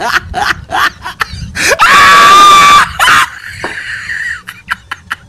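A person laughing in short bursts, then a loud, high-pitched scream held for about a second, about two seconds in, followed by quieter squeals and a few clicks.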